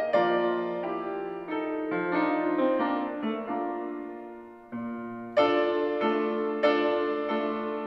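Solo piano playing a slow piece of struck chords and melody that die away. The music grows softer towards about five seconds in, then a louder chord comes in about half a second later.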